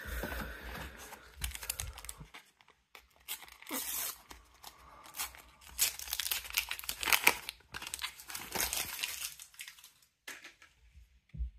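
A Panini sticker packet being torn open and its wrapper crinkled and rustled, in several spells of tearing and crackling that die down near the end.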